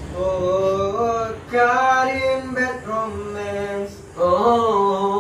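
A group of young men singing together, holding long notes and stepping from one pitch to the next.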